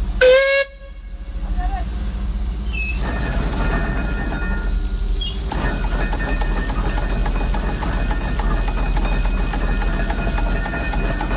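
Steam crane's whistle gives one short blast near the start and cuts off sharply, then the working steam crane sends out a steady hiss and machinery noise.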